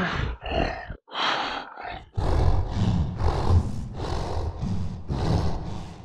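Werewolf creature sound effect: a few short snarling growls, then from about two seconds in a steady run of growled breaths, roughly two or three a second, with a deep rumble underneath.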